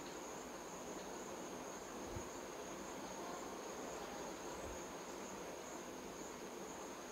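A steady, high-pitched chorus of insects, faint and unbroken, over a low outdoor hiss.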